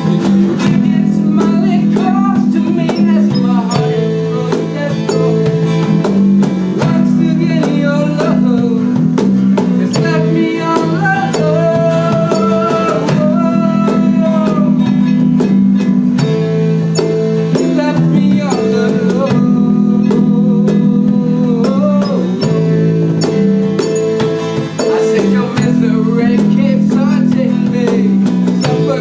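A live rock band playing a song: strummed guitar chords over a steady drum kit beat, with a voice singing the melody.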